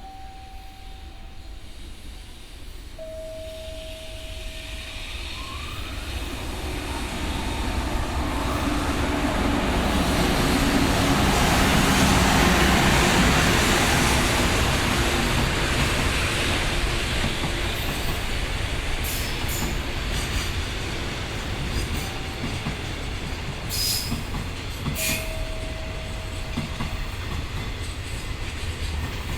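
A freight train hauled by an EH500 electric locomotive runs through the station without stopping. The rumble builds to its loudest about twelve seconds in, then the container wagons keep rolling past with a clickety-clack over the rail joints. A few short steady tones sound near the start and again near the end.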